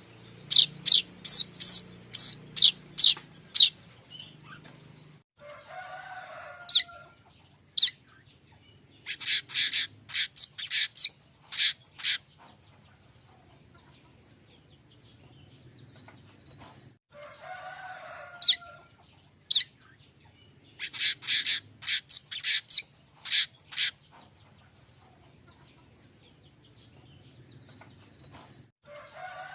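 Streaked weaver (manyar kembang) calls. The clip opens with a run of sharp, high chirps at about four a second. Then, twice about twelve seconds apart, comes the same phrase: a lower, rougher call followed by bursts of rapid chirps.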